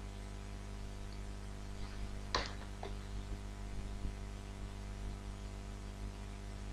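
Steady low electrical hum, mains hum in the recording chain, with a faint click about two and a half seconds in.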